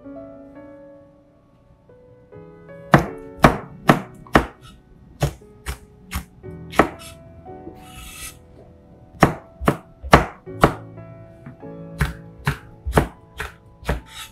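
Chef's knife slicing green and red chili peppers on a plastic cutting board: sharp knocks of the blade on the board in quick runs of several strokes, starting about three seconds in.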